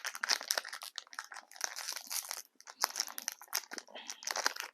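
A trading-card pack wrapper being torn open from the end and crinkled in the hands: a dense run of quick, irregular crackles.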